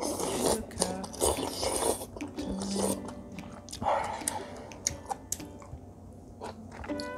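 A person chewing and crunching a mouthful of home-cooked food close to the microphone: loud crunching in the first two seconds and again about four seconds in, with small wet mouth clicks between. Faint background music underneath.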